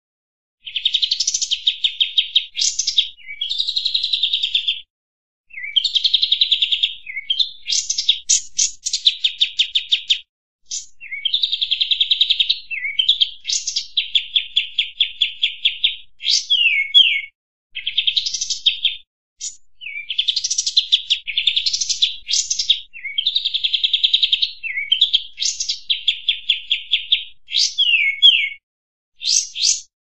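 Song of a kapas tembak bird: phrase after phrase of fast, rapidly repeated high notes, each phrase about one to two seconds long with short pauses between.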